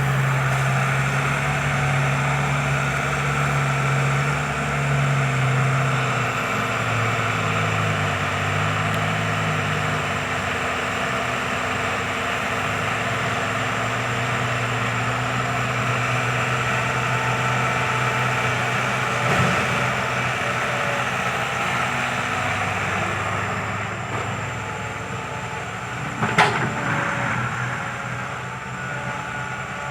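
Kobelco SK120 Mark III excavator's diesel engine running steadily, its pitch shifting up and down a few times as it works. Two sharp knocks are heard, about 19 and 26 seconds in.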